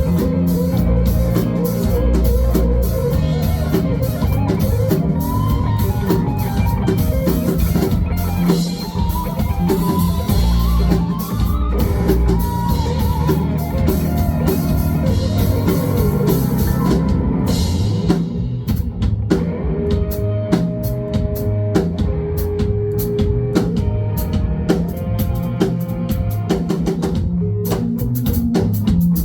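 A live band playing an instrumental funk-rock jam, led by electric guitar over a drum kit. About two-thirds of the way through the drums drop their steady cymbal wash for sparser hits.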